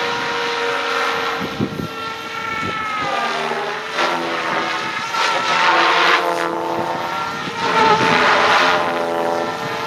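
SAB Goblin Urukay electric RC helicopter in flight: a steady rotor and motor whine whose pitch glides up and down as it manoeuvres, swelling louder about six and eight seconds in.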